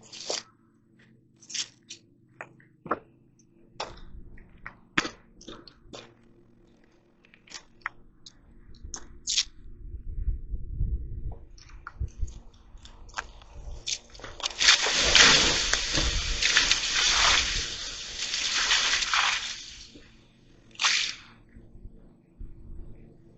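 A wood fire being put out: scattered knocks and crunches, then a loud hiss lasting about five seconds as water hits the hot coals and turns to steam, and a short final burst of hiss.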